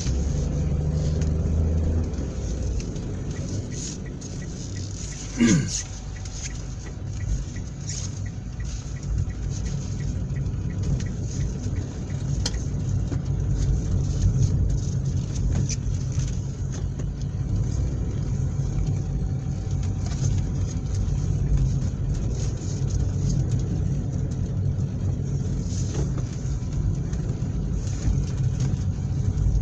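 Car being driven: a steady low engine and road rumble, with a brief sound gliding down in pitch about five seconds in, the loudest moment.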